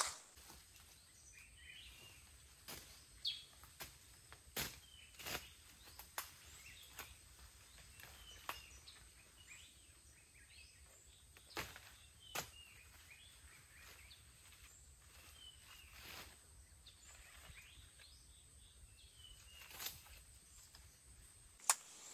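Quiet outdoor ambience: faint bird chirps over a low steady hum, broken by scattered sharp knocks and snaps, two of them about twelve seconds in from a knife striking banana leaves.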